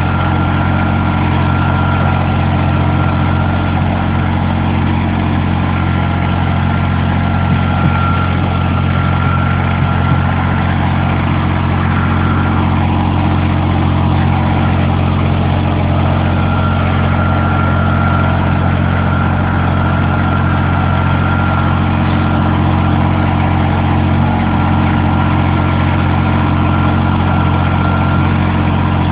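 Kubota compact tractor's diesel engine running steadily while it pulls a tine cultivator through the soil, with a thin whine that comes and goes.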